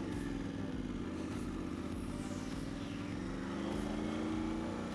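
Motorcycle engine running while riding at low speed, heard from inside the rider's helmet. Its pitch rises about three seconds in as the bike accelerates.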